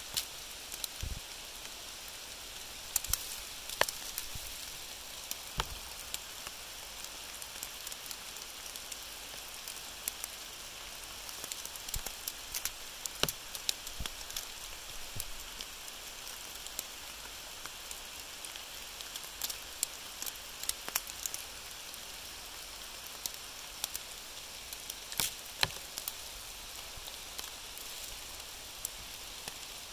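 Rain falling: a steady hiss with irregular sharp drops and drips landing close by.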